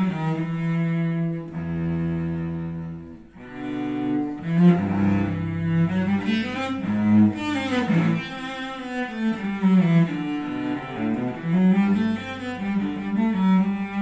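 Samuele Bagni cello, Garimberti model, played solo with the bow: a melodic line moving from note to note, with a long low note held about two seconds in.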